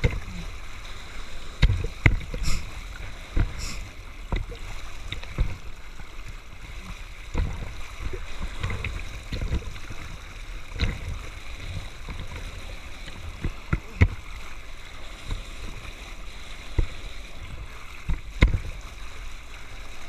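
Sea water rushing and spraying over a person riding prone on a board at speed, with irregular hard thumps and slaps as water and board hit the surface.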